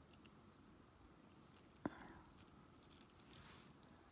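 Near silence with faint clicks of beads knocking together as beaded bracelets of grey metallic and black stone beads are handled, one sharper click about two seconds in.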